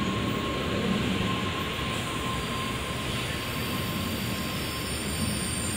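N700-series Tokaido Shinkansen train pulling out at low speed, its last cars passing close by: a steady rush of running gear and motors. A thin steady tone sounds through the first two seconds and then fades.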